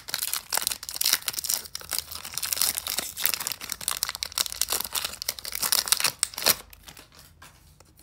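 Foil wrapper of a Pokémon trading-card booster pack being torn open and crinkled by hand, a dense crackling that thins out and fades near the end.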